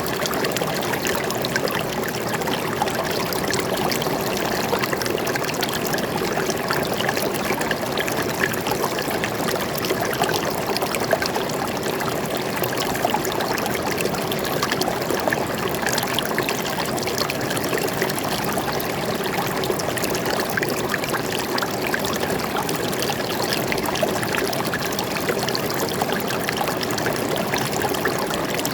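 A forest stream flowing steadily over rocks, with a constant trickling and splashing.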